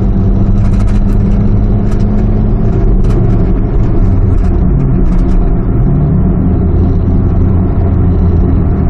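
Engine and road noise heard inside the cabin of a 2001 Hyundai Verna with an automatic gearbox, driving along in traffic: a steady low drone.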